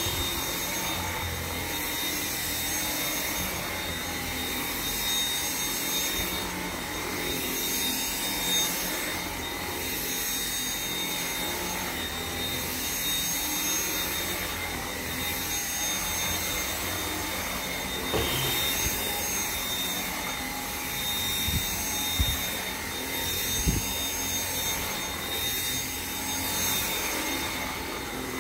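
Dyson V7 Motorhead cordless stick vacuum running steadily, a rushing noise with a high whine. A few brief low knocks come in the later part.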